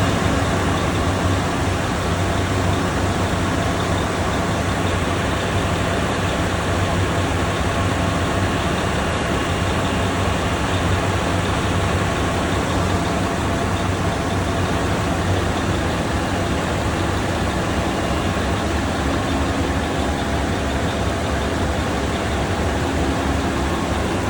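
Ship's engine-room machinery running steadily: a loud, even noise with a low hum underneath.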